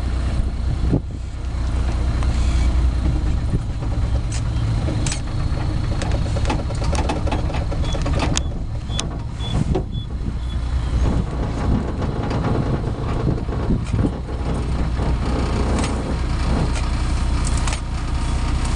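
Safari vehicle's engine idling with a steady low rumble, broken by scattered clicks and knocks.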